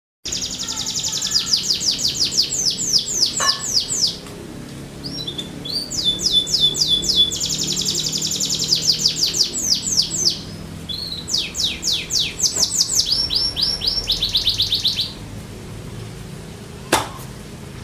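Canary singing: fast trills of rapidly repeated down-sweeping notes, in phrases broken by short pauses.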